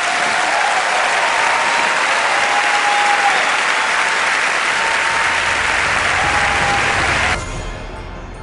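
A large audience applauding steadily, cut off abruptly about seven seconds in.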